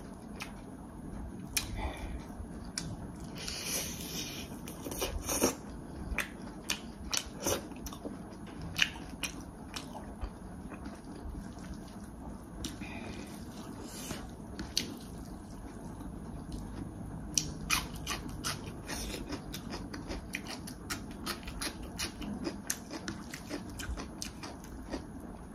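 A person eating a meal of rice and pork fry close to the microphone: chewing and biting, with many short, sharp clicks and smacks at an irregular pace.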